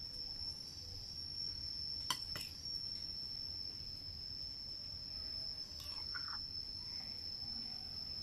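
A metal spoon clinks twice against a ceramic bowl about two seconds in, with a few softer knocks and scrapes later, as filling is spooned into the bowl. Under it runs a continuous high-pitched whine.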